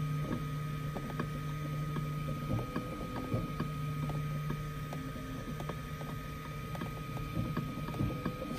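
Ultimaker 3 Extended 3D printer running mid-print: a steady low hum and a steady high whine from its motors, with light irregular ticks as the print head moves.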